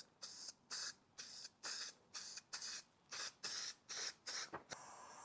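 Aerosol can of U-Pol satin black paint spraying in about a dozen short hissing bursts, roughly two a second, laying a light coat onto small bolts; the spraying stops shortly before the end.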